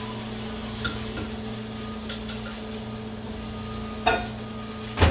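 Metal spoon stirring macaroni in a ceramic mug, clinking against the side several times, with a louder knock near the end. A steady hum runs underneath.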